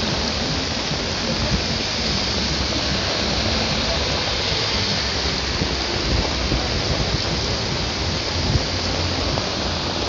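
Steady rain, a dense even hiss, with a few brief louder taps of drops about a second and a half in and a few more in the second half.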